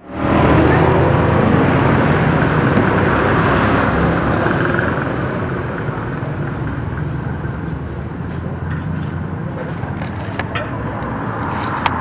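Garbage truck engine running steadily at idle, with a few sharp knocks near the end.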